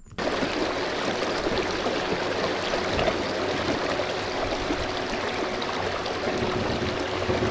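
Water rushing steadily along the hull of a fishing kayak underway, with a faint steady whine from its Torqeedo electric outboard motor. The rush starts abruptly just after the start.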